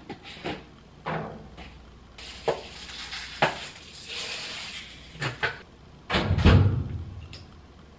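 A top-load washing machine being loaded for a wash. Scattered knocks and clatter run through it, with a stretch of rustling hiss about two seconds in. A heavy low thump about six seconds in is the loudest sound.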